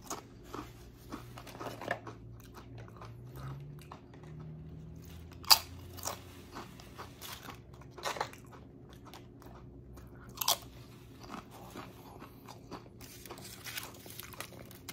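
Close-up chewing and crunching of tortilla chips, with a few sharp, loud crunches several seconds apart between softer chewing.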